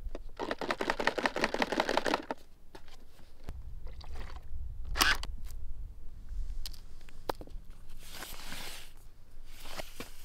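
Toy water pistol being handled and fired: a fast run of mechanical clicks for about two seconds, then scattered clicks, a short sharp squirt about five seconds in, and two hissing sprays of water near the end.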